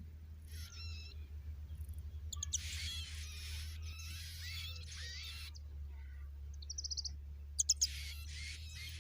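Baby birds cheeping: many short, high calls that curve down in pitch, a few near the start, a dense run from about two and a half seconds in, and again near the end with a couple of sharp clicks. A steady low hum lies underneath.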